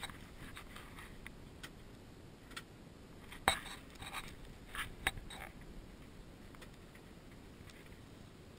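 A few faint clicks, taps and scrapes as things are handled in the cockpit of a parked light aircraft, with one sharper knock about three and a half seconds in.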